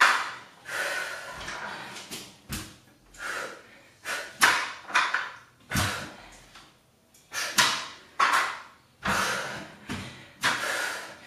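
A woman breathing hard in a string of short, forceful exhales while doing dumbbell man makers, with several thuds and knocks as the 25 lb adjustable dumbbells and her feet meet the rubber floor mat.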